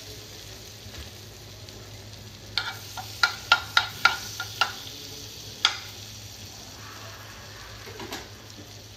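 Butter sizzling and foaming in a nonstick frying pan. In the middle a steel spoon knocks against the pan about eight times in quick sharp clinks as it pushes the melting butter around.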